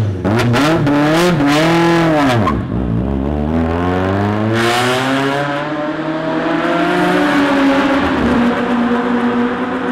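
Proton Saga R3 race car's Campro four-cylinder engine revved in a few quick blips, then pulling away, its note rising steadily for several seconds before levelling off to a steady tone near the end.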